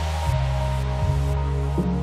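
Background music: an instrumental stretch of a song with no singing, with held bass notes and steady chords.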